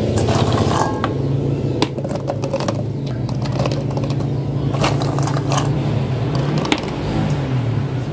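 Star gooseberries dropped by hand, one at a time, into a plastic cup: scattered light knocks about a second apart. A steady low hum runs underneath.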